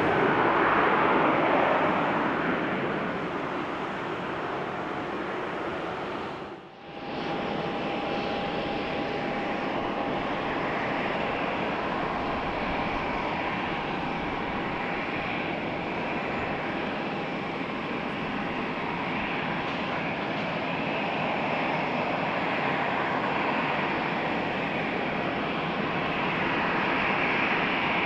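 Jet airliner engine noise, loudest at the start and easing off; after a brief drop-out about seven seconds in, a second stretch of steady jet engine noise with a faint high steady whine, growing slightly louder near the end.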